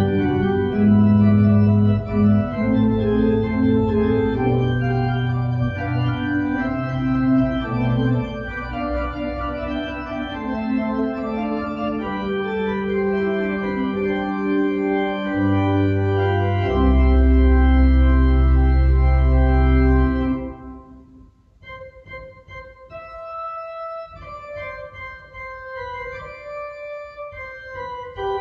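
Church organ playing a prelude: sustained chords over a low pedal bass, swelling to a loud full chord with a deep bass note that ends about 20 seconds in, then a quieter passage of softer, higher notes.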